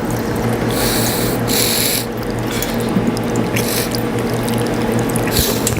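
Drinking fountain running while someone sips from it. The water stream hisses and splashes in short spells over a steady low hum.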